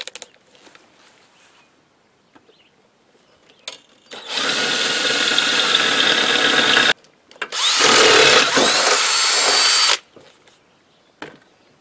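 Ridgid cordless drill with an 11/32-inch bit boring through a metal mower deck, enlarging a pilot hole: two runs of about three seconds each with a short pause between, each cutting off abruptly.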